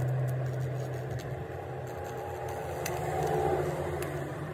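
An engine running steadily at idle, with a few faint clicks.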